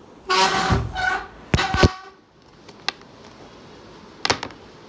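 A short, loud tone of several steady pitches lasting about a second, followed by a few sharp knocks and clicks as the phone recording is handled and covered.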